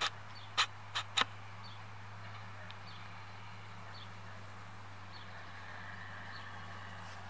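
Fendt 930 tractor pulling a Krone ZX470 loader wagon through a field, a steady low drone from across the field. Four sharp clicks in the first second and a half are louder than the drone.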